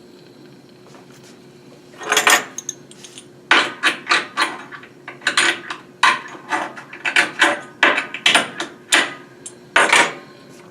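Small tools and metal pieces being handled and set down on a jeweller's workbench: about a dozen irregular sharp knocks and clicks, starting about two seconds in.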